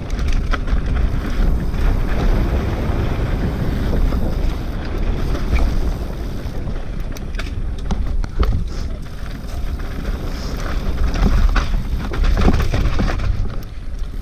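Wind buffeting an action camera's microphone as a mountain bike rides fast down a dirt and rock singletrack, with tyre noise on the trail throughout and scattered sharp clacks and rattles as the bike hits rocks.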